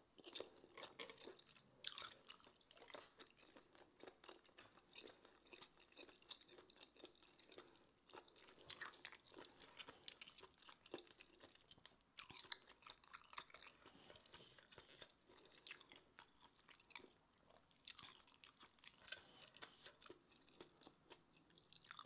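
Faint close-up eating sounds: a person chewing a mouthful of spicy seafood papaya salad with squid and rice noodles, a steady run of small, irregular wet clicks and smacks.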